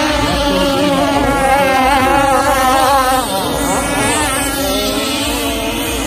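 Several 30cc two-stroke gasoline engines of radio-controlled racing boats running at high revs, their whines overlapping. The pitch sways as the boats pass, with one dipping and rising about three and a half seconds in.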